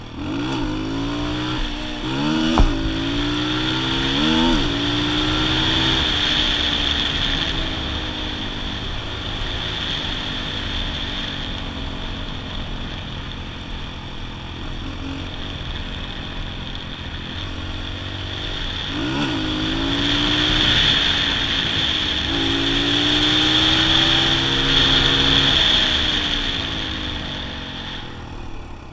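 Kawasaki KLX 125's single-cylinder four-stroke engine under way. Its pitch climbs and drops back several times in the first few seconds and again about two-thirds of the way through, as it accelerates through the gears, with steadier cruising in between.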